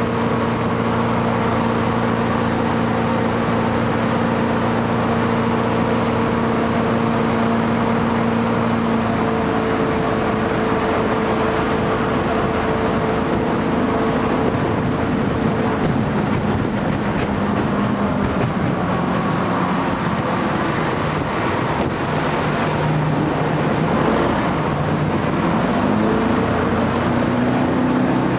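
Jet boat engine running hard under way, a steady droning note over a loud rush of wind and water. The note holds steady for about the first half, then shifts and wavers in pitch through the second half.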